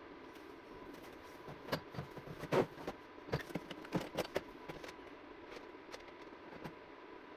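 A quick, irregular run of clicks and knocks from small hard objects being handled, loudest about two and a half seconds in, over a steady faint hum.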